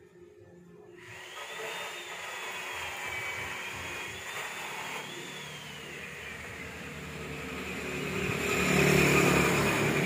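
A motor running with a wavering high whine. It starts abruptly about a second in, then swells to its loudest near the end with a deeper rumble.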